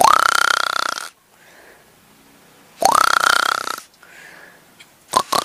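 A woman imitating a tiger's roar with her voice: two rough roars, each rising at the start and held for about a second, the second coming about three seconds after the first.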